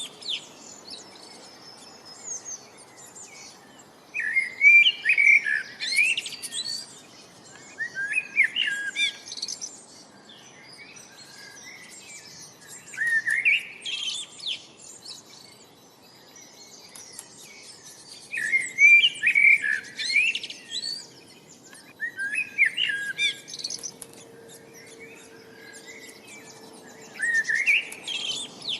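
Songbird singing, repeating a short bright phrase of rising chirps about every four to five seconds, with fainter chirps from other birds in between.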